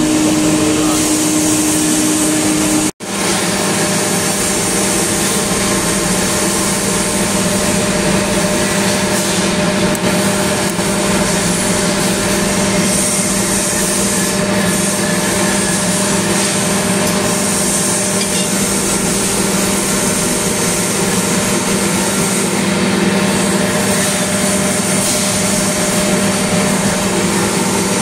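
Industrial air compressor running: a loud, steady machine hum with airflow hiss. The sound cuts out for an instant about three seconds in and resumes with a lower hum.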